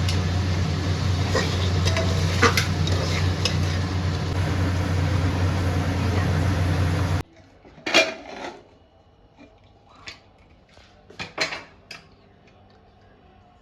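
A metal utensil clinks and scrapes against a cooking pot over a loud steady hum. About seven seconds in the hum cuts off suddenly, leaving quiet broken by a few sharp clinks.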